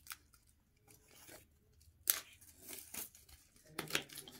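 The wrapping on a wall calendar being torn open by hand in a series of short, irregular rips, the sharpest about two seconds in.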